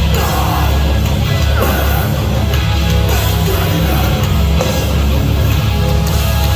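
Heavy rock band playing live at full volume, with distorted electric guitars, bass and drums.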